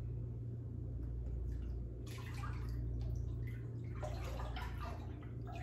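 Water splashing and sloshing in a small tank as a hand moves about in it, in short irregular patches, over a steady low hum.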